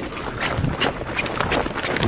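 Wind rushing over a dirt bike's onboard camera microphone, with many quick knocks and rattles as the bike bounces over rough, rocky ground.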